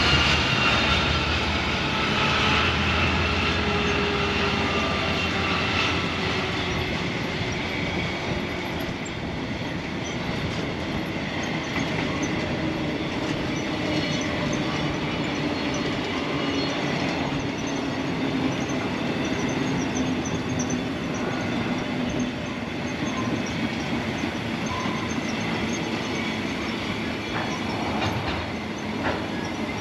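Narrow-gauge cattle train rolling past, its wagons clattering over the rail joints with some high wheel squeal. A tone falls away in pitch over the first few seconds as the head of the train passes, and the rolling sound slowly eases.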